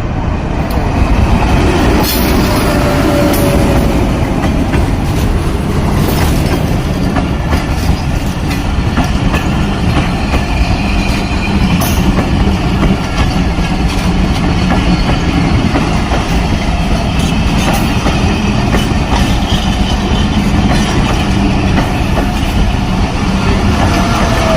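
Passenger express train passing close by, a continuous heavy rumble with its wheels clicking over the rail joints.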